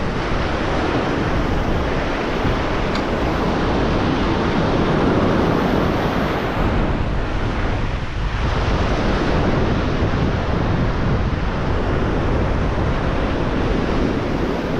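Ocean surf breaking and washing up a sandy beach in a steady wash of noise, easing briefly about halfway through. Wind buffets the microphone, adding a low rumble.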